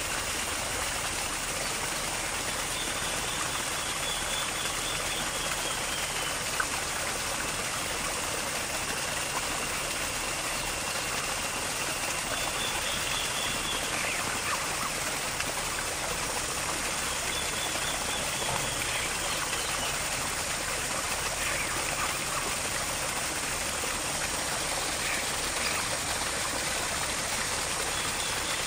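Steady, even rushing hiss of running water, with a faint high call that comes back every few seconds.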